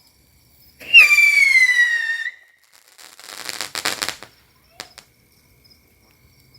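Whistling firework rocket going up with a loud whistle that falls slightly in pitch for just over a second, then a quick run of crackling pops about two seconds later.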